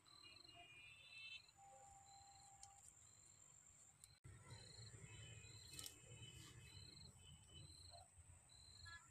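Near-silent rural background with a cricket giving short high chirps about once a second.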